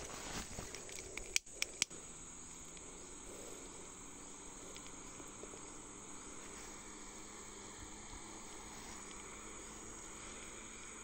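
Faint steady insect chorus, with three sharp clicks about a second and a half in: a disposable lighter being struck to light a coconut-husk smoker.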